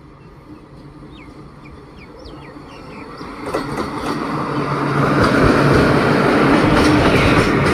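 Indian Railways WAG-5 electric locomotives approaching and passing close by: the rumble of the train grows louder over the first few seconds and stays loud once it is alongside. A steady hum runs under the rumble, and the wheels click over the rail joints.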